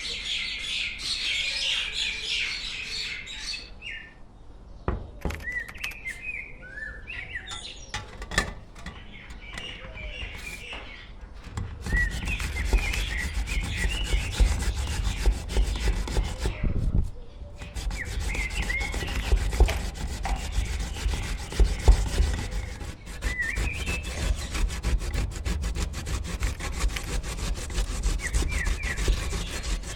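Fresh ginger being rubbed on a hand grater: scattered strokes at first, then a steady run of fast scraping strokes from about twelve seconds in, pausing briefly about five seconds later. Birds chirp throughout.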